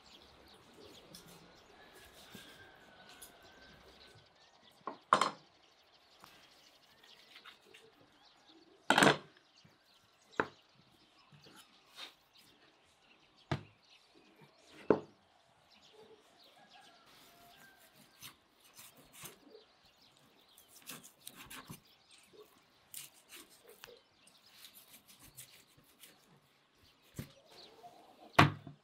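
Large curved knife chopping through raw lamb onto a wooden cutting board: single sharp chops scattered a second or several apart, the loudest about nine seconds in. Faint bird chirps in the background.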